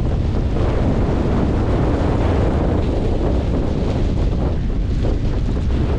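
Strong storm wind buffeting the microphone, loud and steady with heavy low rumble.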